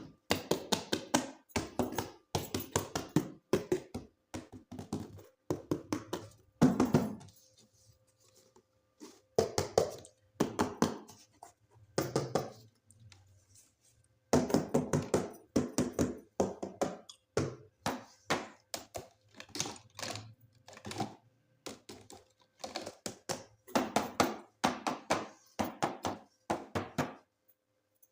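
Hands handling plastic toys and their packaging: bursts of tapping, scratching and knocking, each a second or two long, with short pauses between.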